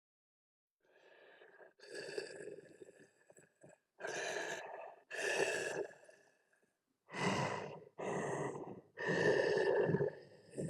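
Tusken Raider voice sound effect: six raspy, breathy huffs and gasps, each half a second to a second long, starting after a short silence. The longest comes near the end.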